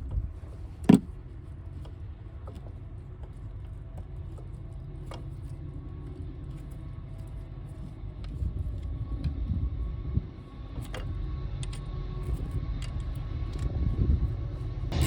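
Small clicks and taps of engine parts being handled and fitted, with one sharp click about a second in, over a steady low rumble.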